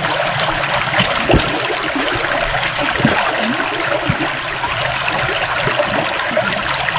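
Running stream, flowing steadily with continuous trickling and small gurgles.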